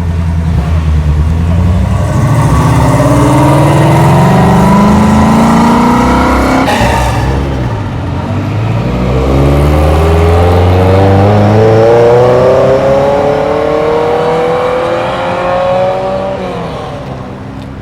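Car engine accelerating hard, its pitch climbing steadily. About seven seconds in the pitch drops sharply and climbs again in a second long rise, as at an upshift. The sound falls away near the end.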